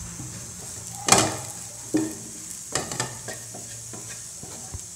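Spatula stirring and scraping fried raw-banana cubes around a non-stick frying pan, a run of irregular scrapes and knocks with the loudest about a second in, over a steady faint sizzle of oil.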